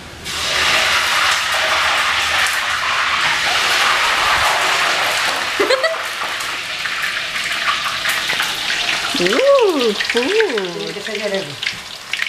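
Food frying in hot oil in a pan: a loud, steady sizzle that starts abruptly just after the start and eases a little about halfway through. Around nine to eleven seconds in, a high voice-like sound rises and falls in pitch over the sizzle.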